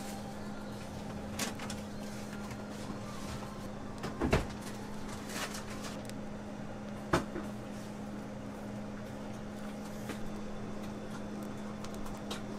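A steady low electrical hum under faint handling clicks, with two sharper knocks, one about four seconds in and another about three seconds later.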